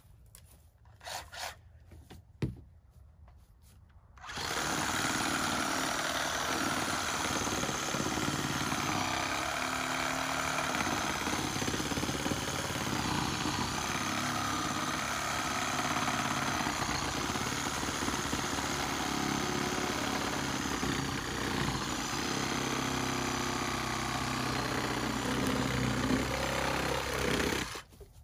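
Reciprocating saw (sawzall) cutting through dead fallen tree branches. It starts suddenly about four seconds in after a few faint knocks, runs steadily with a wavering pitch, and stops abruptly near the end.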